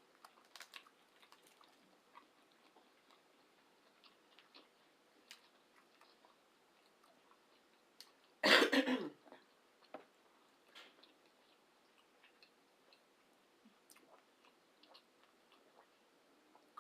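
Quiet chewing and small mouth clicks from someone eating, broken about halfway through by one loud throat sound lasting under a second.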